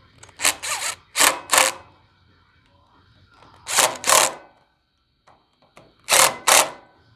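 Ridgid cordless impact driver run in short bursts, two quick pulls at a time, four times over, snugging down square-head screws.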